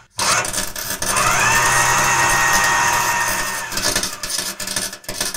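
Power drill sound effect: the drill whines up about a second in, runs steadily for a few seconds and winds down near four seconds, with a few knocks near the end.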